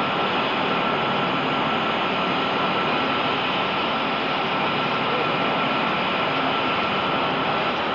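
Steady rushing noise with a constant high whine over it, unchanging in level throughout.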